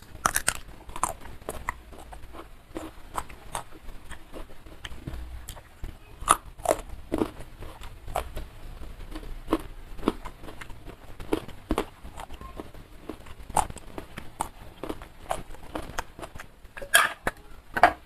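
Close-miked chewing: a person biting and chewing a mouthful of food, with irregular mouth clicks and smacks, several louder ones near the end.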